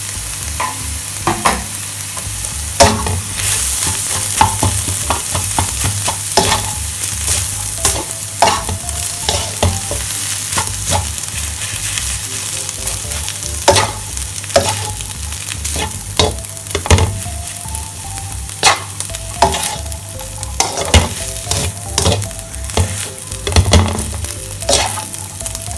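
Fried rice sizzling in a black pan while a slotted spatula stirs and scrapes it, knocking against the pan in sharp clacks, at times several a second, over a steady frying hiss.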